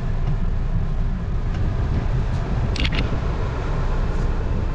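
Cabin noise of a Mahindra XUV300 driving slowly: a steady low engine and road rumble, with two short high-pitched sounds just before three seconds in.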